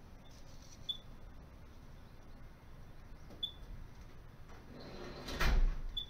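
Short high electronic beeps from a handheld external tester for an automatic fire alarm system as its keys are pressed, three of them a couple of seconds apart. Near the end comes a louder rustling knock of handling.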